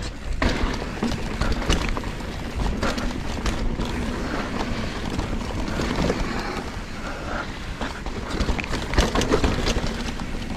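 Giant Trance full-suspension mountain bike rolling through loose sand on a dirt trail: steady tyre noise with scattered knocks and rattles from the bike over bumps, and wind rumbling on the camera's microphone.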